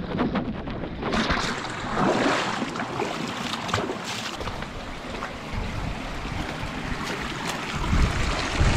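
Water sloshing and splashing as a hiker wades through a shallow stream in a narrow slot canyon, mixed with rubbing and knocks from the hand-held camera. Low buffeting on the microphone near the end.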